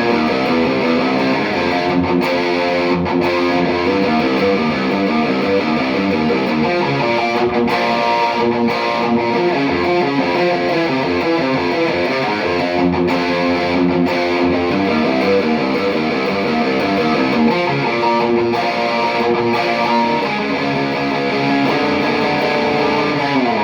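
Distorted electric guitar played through a Mesa/Boogie Mark V:25 tube amp, running through fast, rapidly alternating picked riffs. The notes slide downward in pitch near the end.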